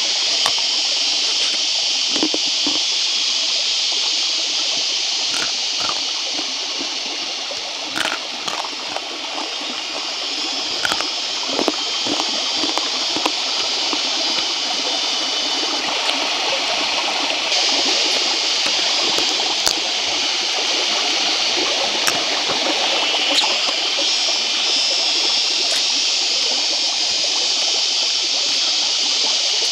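Small rocky stream running over stones, a steady rushing, with a few short sharp clicks on top of it.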